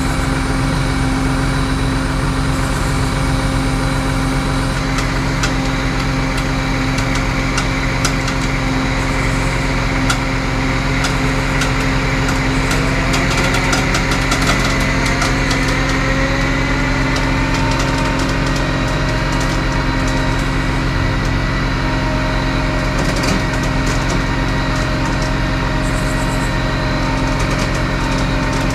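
Vehicle engine running steadily at idle. A higher tone rises in pitch around the middle, then holds.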